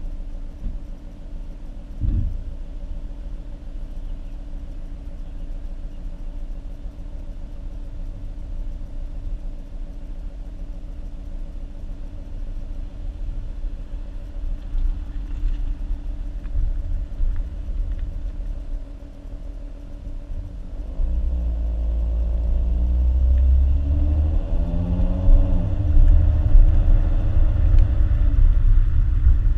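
The 3.7-litre V6 of a 2014 Ford Mustang, heard through its stock exhaust while driving: a low, steady drone at cruise, with a single knock about two seconds in. About two-thirds of the way through it gets louder and its pitch climbs as the car accelerates, then it drops back and holds at a louder drone.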